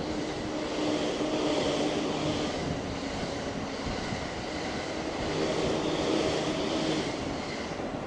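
Electric train running past a level crossing: a steady rushing rumble with a low hum, swelling twice.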